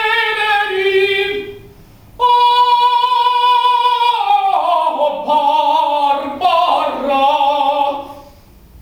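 Classical solo singing. After a short pause about a second and a half in, the voice holds one long high note for about two seconds, then moves down through wavering phrases and fades near the end.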